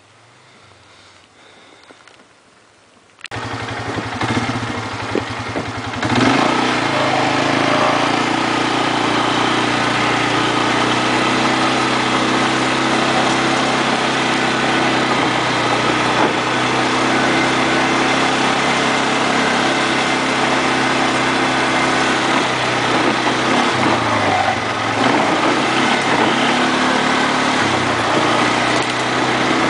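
ATV engine starting up suddenly about three seconds in, then running louder from about six seconds in and carrying on steadily, with a brief dip and rise in engine speed near the end, as the ATV rides along a dirt trail.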